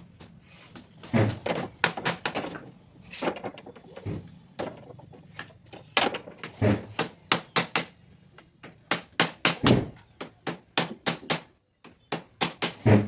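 Hammering on wood: runs of sharp knocks at about four a second, some landing as heavier thuds.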